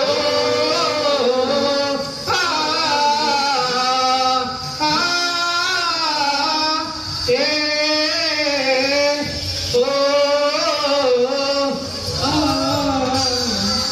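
A group of men singing a song together into microphones through a PA, in phrases of about two to three seconds with short breaks between.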